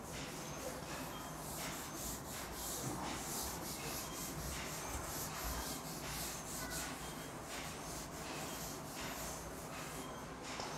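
A blackboard eraser rubbed over a chalkboard in repeated wiping strokes, a faint scratchy rubbing as the chalk writing is cleaned off.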